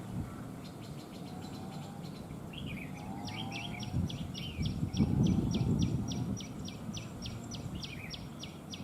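Red-whiskered bulbuls calling: a fast series of sharp repeated notes, about four a second, from a little after three seconds in until near the end, after a fainter, quicker run of notes about a second in. A burst of low rustling noise is loudest about four to six seconds in.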